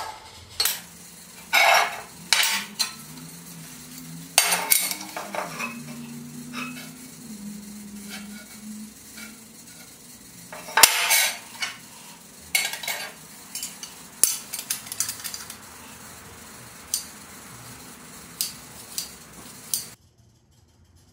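Steel hand tools clinking and knocking against steel stock and a steel workbench top in a string of irregular sharp clicks, with the light scrape of a scribe drawing a line on the steel. The sounds stop abruptly near the end.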